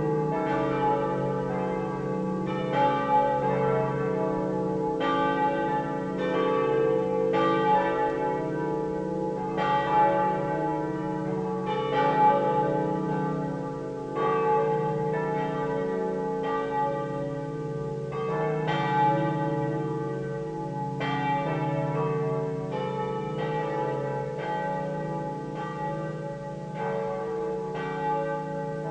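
Swinging church bells (campane a slancio) cast by the Pruneri foundry of Grosio, ringing together in a continuous peal. Strikes of different pitches come every second or so and overlap as each bell's hum carries on under the next.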